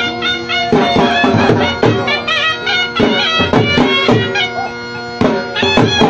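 Folk music for jhumar dancing: a wind instrument plays a melody over a steady drone, with regular drum beats. The drumming drops out briefly a little past the middle, then comes back.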